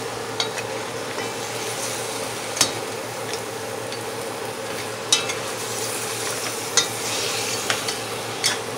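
Curry-seasoned goat meat sizzling in hot oil in a metal pot as it browns, stirred with a spoon, with a few sharp clicks and scrapes of the spoon against the pot.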